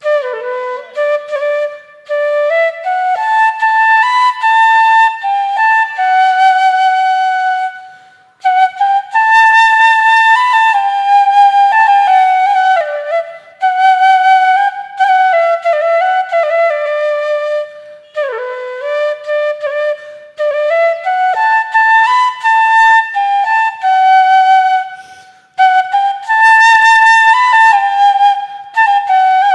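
Music: a solo flute-like melody played in flowing phrases a few seconds long, with short breaks between them.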